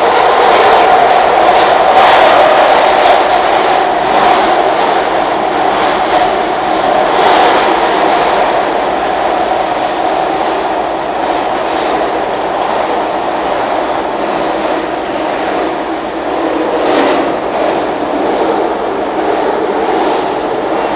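SEPTA Market-Frankford Line M-4 subway car running, heard from inside the car: a steady, loud rumble and rail noise, with a few brief clacks about two, seven and seventeen seconds in.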